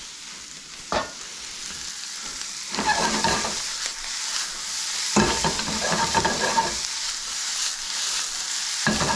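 Spaetzle with bacon and cabbage sizzling in a hot frying pan as Gruyère is melted in, with a steady sizzle and three bouts of stirring and tossing, about 3, 5 and 9 seconds in. A single sharp knock of the utensil against the pan comes about a second in.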